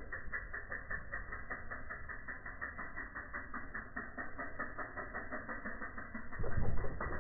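Mountain bike landing off a dirt jump: a heavy low thud and tyre rumble on the dirt about six and a half seconds in, the loudest sound. A steady fast ticking, about five a second, runs in the background.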